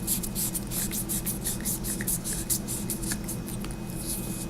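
Hands handling a metal flashlight: a quick, uneven run of light scratching and rubbing sounds.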